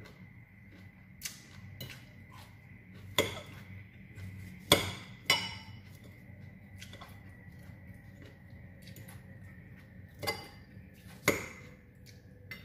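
A fork clinking against a salad bowl as salad is speared and lifted: about six sharp clinks with pauses between, a few ringing briefly, the loudest just before the middle.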